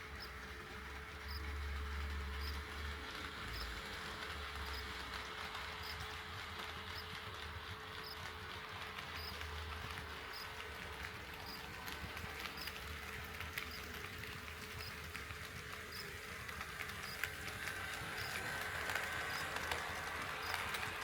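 HO-scale model train running on the layout's track: a low rumble with light clicking, the clicks coming more often and louder near the end, over a steady hum.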